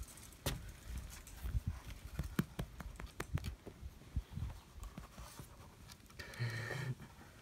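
Faint, irregular clicks and taps, with a brief higher-pitched sound about six seconds in.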